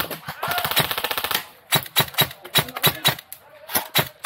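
Airsoft electric guns (AEGs) firing: a rapid full-auto burst for about a second, then a string of single shots spaced a few tenths of a second apart.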